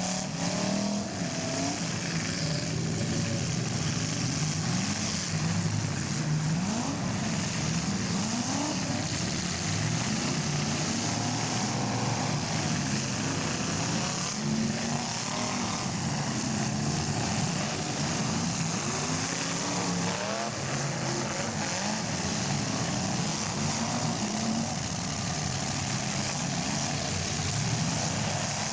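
Several demolition derby cars' engines running at once, revving up and down over a steady haze of engine and crowd noise.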